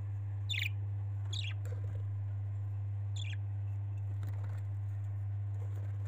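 Budgerigars chirping: three short high chirps spread over the first few seconds, over a steady low hum.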